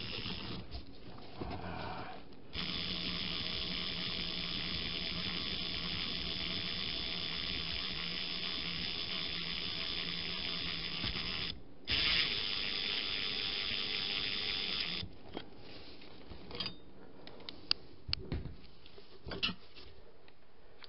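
Cordless impact wrench running on the forcing bolt of a bearing press, in two steady runs, a long one and then a shorter, louder one after a brief pause, pressing a front wheel bearing out of the steering knuckle. A few light clicks and knocks of tools being handled follow.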